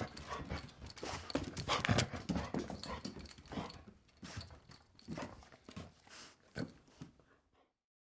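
Soft-coated wheaten terrier at play on a tile floor: snorts, breaths and bites mixed with the clatter of its feet and a jingling collar, in irregular bursts. The bursts are busiest in the first two seconds, thin out, and stop about seven and a half seconds in.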